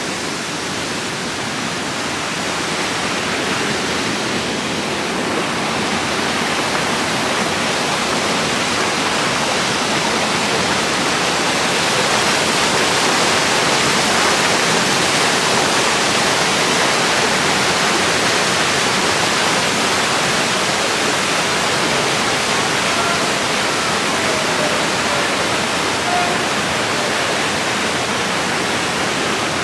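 Whitewater rushing and falling through a narrow rock gorge: a steady, even sound of cascading water that grows louder over the first dozen seconds.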